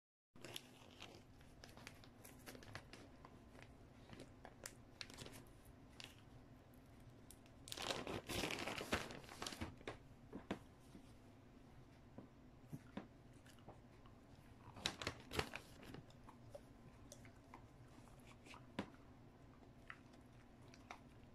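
A soft-chew treat packet crinkling and tearing as it is handled and opened, in a longer burst about eight seconds in and a shorter one about fifteen seconds in, with scattered small clicks and taps between them.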